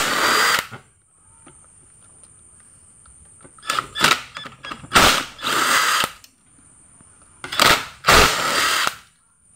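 Cordless power driver spinning bolts out of a motorcycle engine's aluminium crankcase half: three runs of about a second each, with short blips of the trigger between them.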